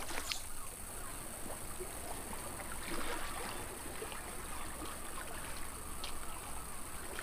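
Faint, steady trickling water with small scattered ticks and bubbles.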